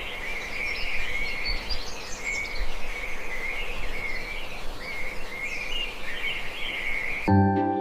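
Countryside ambience: birds chirping continuously over a steady background hiss. Music comes in near the end.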